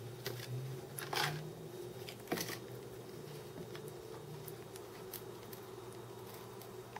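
Handling noises as a USB power bank and its cable are moved on a stone countertop: a short rustle about a second in and a sharp click just after two seconds, over a steady low hum.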